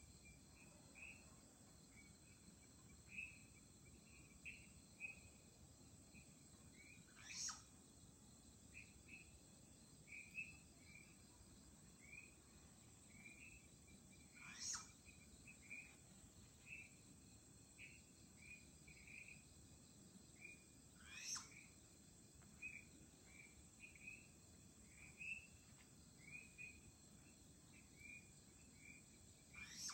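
Flying squirrel calling: four shrill calls, each a quick sweep falling steeply in pitch, about seven seconds apart. Under them, short chirps repeat steadily in the background.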